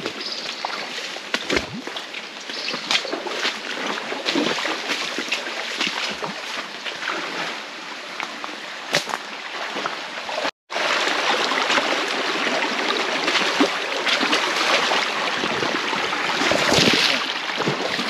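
Shallow forest stream running over rocks, with footsteps splashing and sloshing through the water and many small knocks and rustles of brush. The sound drops out for a split second about ten and a half seconds in.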